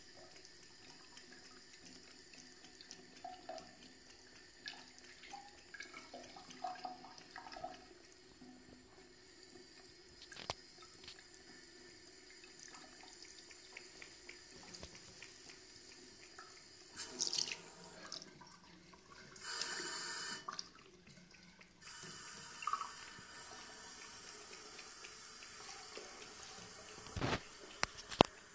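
Thin stream of water trickling from a bidet tap into the ceramic bowl while a cat laps at it; the flow gets louder about two-thirds of the way through. A sharp knock near the end.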